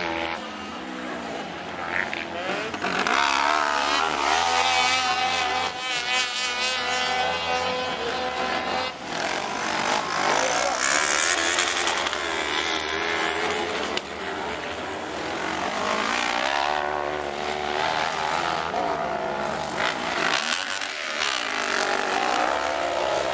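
Several 500 cc kart cross buggies racing, their high-revving motorcycle engines overlapping and rising and falling in pitch as the karts accelerate, brake and pass.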